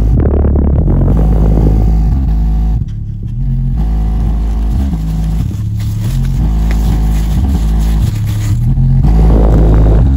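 Aiwa 5.25-inch woofer in a small cardboard box playing a loud bassline, its notes stepping from pitch to pitch, with the box vibrating and buzzing along. It drops briefly quieter about three seconds in.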